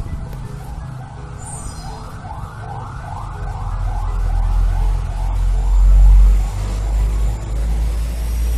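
An emergency vehicle siren going in quick rising-and-falling sweeps, about two a second, over a heavy low engine rumble that builds and is loudest a little past the middle.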